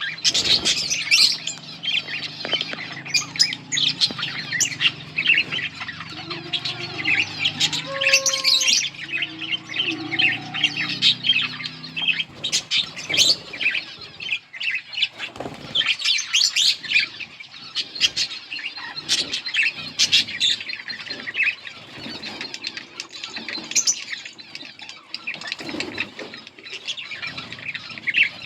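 A pair of budgerigars (parakeets) chirping and chattering without a break: quick, overlapping high chirps and warbling squawks.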